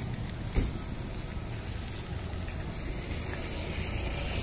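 Intercity bus engine running with a low, steady rumble as the bus pulls away across the terminal yard. There is a single sharp click about half a second in.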